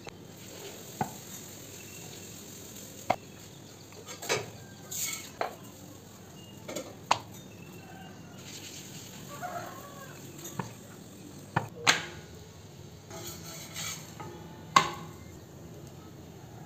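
Wooden rolling pin rolling chapati dough out on a round wooden board, with irregular sharp knocks and clacks of wood on wood.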